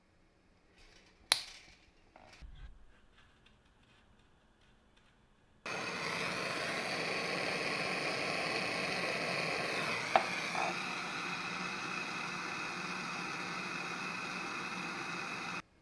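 A sharp click of pliers on steel wire, then a small gas torch hissing steadily for about ten seconds, starting and stopping abruptly. The torch is heating a wire staple to melt it into a cracked plastic drill housing.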